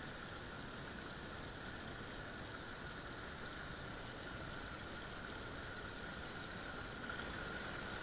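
Small spring forest stream running steadily over stones, an even rush of water.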